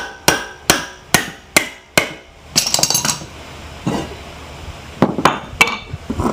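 Hammer striking the metal of an automotive AC compressor, a quick run of ringing blows about two and a half a second, then a short metallic clatter and a few more blows near the end: knocking at the pressed-on clutch coil to drive it off.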